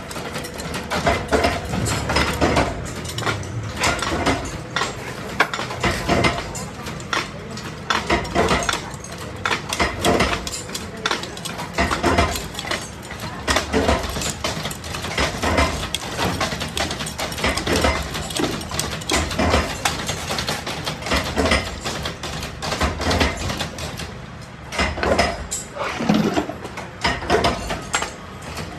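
Stainless steel parts being worked by hand: an irregular run of sharp metal clicks, clinks and knocks.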